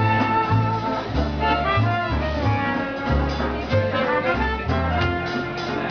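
Live swing-jazz band playing an upbeat tune, a melody line over a bass that steps to a new note about twice a second.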